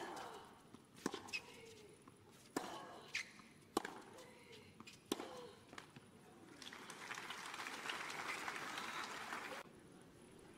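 Tennis rally: a run of sharp racquet-on-ball strikes about a second apart, several with a player's grunt on the shot. Crowd applause follows for about three seconds and cuts off abruptly near the end.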